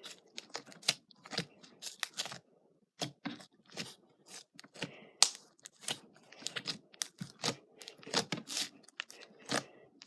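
Slime being squeezed and pressed by hand, giving irregular clicky crackles and pops, several a second.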